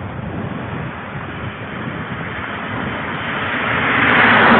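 A vehicle passing on the street, its road noise swelling to a peak near the end and then easing, over wind rumbling on the microphone.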